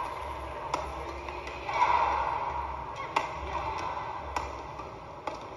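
Badminton rackets striking a shuttlecock in a rally: a string of sharp, light hits roughly every half second to a second. A steady murmur of the arena crowd runs underneath.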